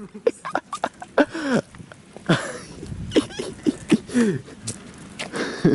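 A dog giving a string of short yelps and whines, each cry falling in pitch, with scattered clicks and knocks.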